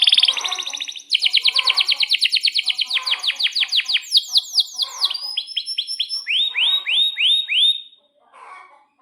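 Male canary singing a long, loud song of fast trills, or rolls, that shifts through several note types: very rapid repeated notes, then slower down-sweeping notes, then a few louder swooping notes near the end. It stops about 8 seconds in.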